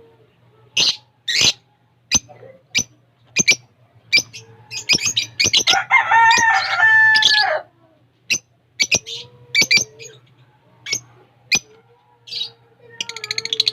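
Caged lovebirds and other small birds chirping: many short, sharp chirps at irregular intervals, with a louder, longer call about six seconds in and fast chattering that starts near the end. A low steady hum runs underneath.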